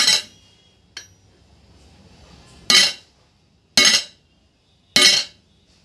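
Hammer blows on the iron handle ear of a hand-made flat iron dosa tawa, bending the ear slightly upward. Four sharp metallic strikes with a short ring, the last three about a second apart, and a light tap about a second in.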